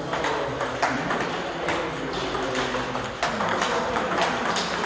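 Table tennis ball in a fast rally, struck by rubber-faced bats and bouncing on the table: a quick, irregular run of sharp clicks.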